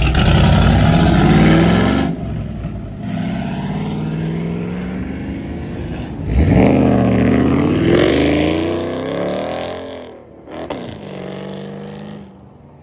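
Ford Mustangs pulling out onto the road and accelerating hard, their engines revving up in several rising pulls through the gears. The loudest pull is about six seconds in, and the engine sound fades as the cars drive away near the end.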